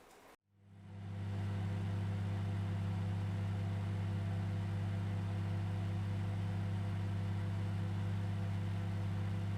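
Microwave oven running with a steady low electrical hum, fading in about half a second in and then holding unchanged: it is heating food that was still cold.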